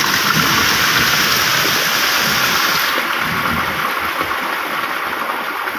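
Heavy rain pouring down onto flooded, waterlogged ground: a loud, steady, dense hiss that eases a little after about three seconds.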